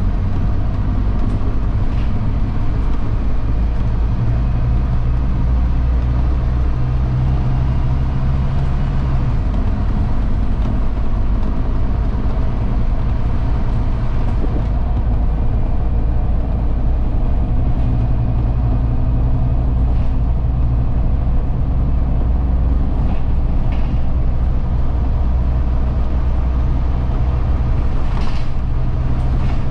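Cabin noise on the upper deck of a Scania Fencer F1 double-decker bus: a steady low drone from the engine and running gear, its pitch shifting about a third of the way in and again about halfway. A few faint ticks come later on.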